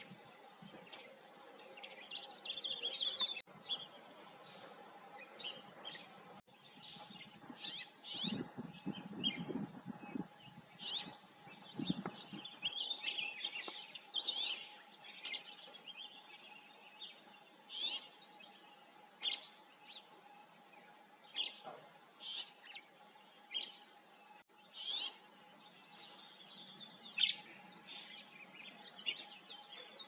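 Small songbirds chirping and tweeting in many short, separate calls, with a faint steady hum underneath. A low rumble comes in briefly about a third of the way through.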